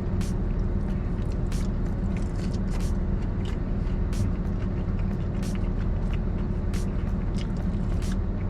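Close-up chewing with frequent wet mouth clicks, about two or three a second, over a steady low hum.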